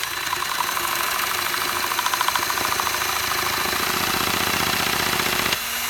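Power drill spinning a LEGO chainsaw's crankshaft mechanism, the plastic parts clattering in a fast, even rattle; it stops abruptly near the end.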